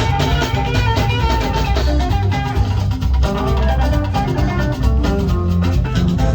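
Instrumental music: a quick melody of short notes over a bass line and drums.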